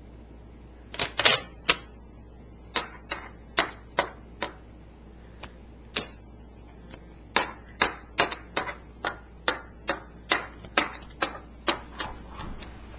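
Sharp clicks and taps at an uneven pace, sparse at first and then thickening to about two or three a second after the halfway point, from a baby batting at the buttons of a plastic fridge-magnet toy.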